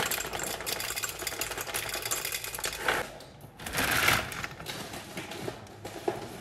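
Dry beans poured from a packet into the plastic jug of a soymilk maker, making a dense, rapid rattle of small hard clicks. It pauses briefly about three seconds in, comes back louder just before four seconds in, then thins out to scattered clicks.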